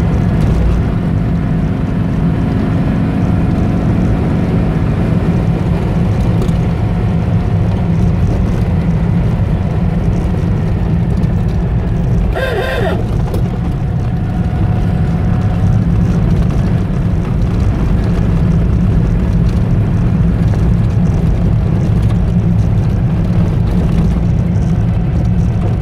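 Car engine running with road noise, heard from inside the cabin while driving: a steady low rumble.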